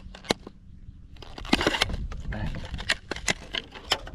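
A frog lure being cast with a fishing rod and reel: a short swish about a second and a half in, with several sharp clicks around it.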